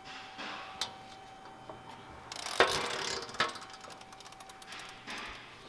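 Socket ratchet clicking as the 14mm oil drain plug is loosened, with irregular clicks and a sharper metallic clack about two and a half seconds in.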